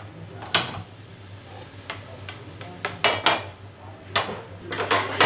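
Sharp clicks and metallic knocks at a gas stove: a spark gas lighter clicking at the burner and a frying pan knocking on the grate, as several separate strikes over a faint steady hum.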